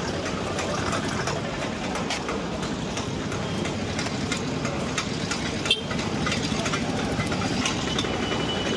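Busy market din: a vehicle engine idling steadily under a clatter of small knocks and clicks, with one sharp knock a little over halfway through.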